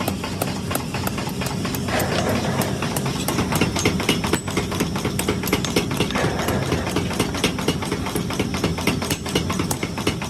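Rapid, steady hammering on metal while tongs are forged, several sharp blows a second over a low running hum.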